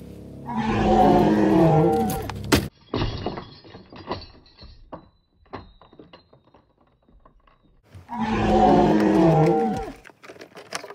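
A loud, drawn-out groaning call about two seconds long, sagging in pitch, heard twice the same way. In between, small objects rattle and clatter as a purse is emptied and rummaged through on a wooden deck.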